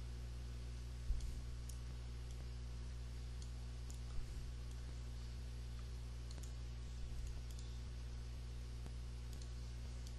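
Computer mouse clicking now and then, a handful of sharp clicks scattered over a few seconds, over a steady low electrical hum.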